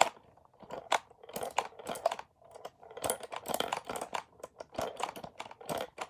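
Homemade LEGO pinball machine in play: quick plastic clicks and clacks as the LEGO flippers are flicked by their side button and the ball knocks about the brick playfield, in uneven bursts with a sharp click at the very start.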